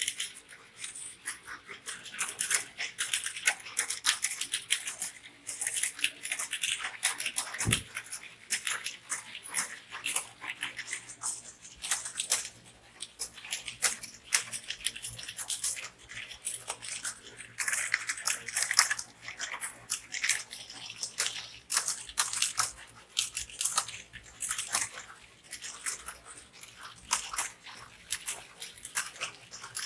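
Many computer keyboards being typed on at once: a dense, fast, uneven clatter of key clicks.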